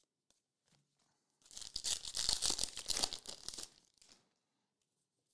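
Packaging crinkling and crackling for about two seconds, starting about a second and a half in, then a couple of faint taps.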